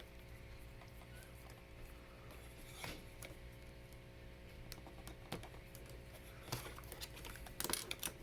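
Faint clicks and light rattling of plastic Lego Hero Factory parts being handled and snapped together, with a few sharper clicks scattered through and a short cluster of them near the end, over a steady low hum.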